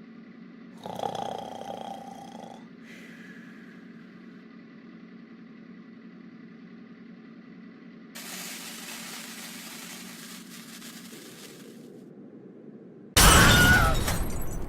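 A short crash about a second in, like something breaking, over a faint steady hum. Loud music with cheering starts near the end.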